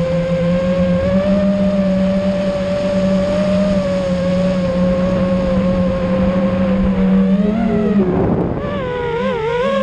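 Motors and propellers of an iFlight Nazgul5 5-inch FPV quadcopter whining steadily at cruise throttle. About 8 s in the pitch sweeps up and drops with a short rush of prop noise as the quad banks, then wavers with throttle changes.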